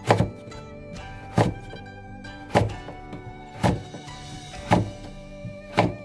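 Knife chopping taro into strips on a cutting board: six sharp thunks, about one a second, over background music.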